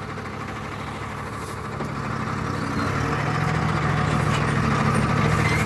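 Truck engine running with a steady low hum, getting louder from about three seconds in as the truck moves forward.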